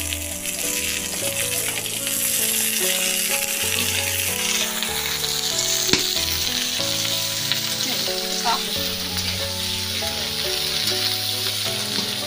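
Ash gourd chunks sizzling as they fry in hot oil in a karai, stirred with a metal spatula, with a single knock of the spatula on the pan about halfway through. Light background music plays underneath.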